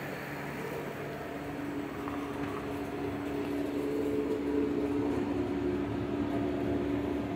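Steady machine hum with a held droning tone, growing slowly louder through the middle.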